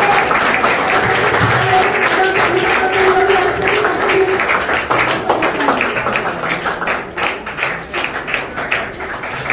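Audience applauding, a dense clapping that thins out into scattered separate claps over the second half. A steady held tone sounds under the clapping for a few seconds about a second in.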